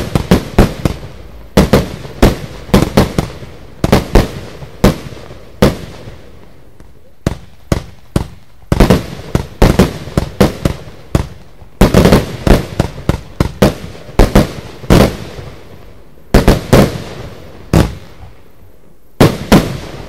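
Lesli Brocade Blaster firework battery firing: a long run of sharp bangs, coming in quick clusters with short pauses between, the last shots shortly before the end.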